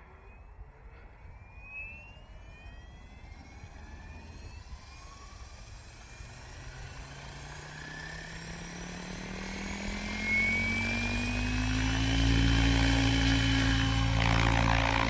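Goosky RS7 electric RC helicopter spooling up: the motor whine and rotor hum rise steadily in pitch and loudness for about twelve seconds, then settle into a steady pitch at flying head speed.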